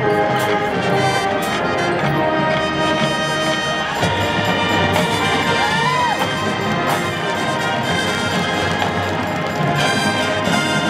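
College marching band playing live, its brass section sounding several held notes together.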